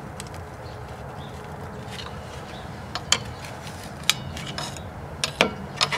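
Scattered light clicks and taps, about six in all and mostly in the second half, from handling around the rear drum brake, over a steady low background hum.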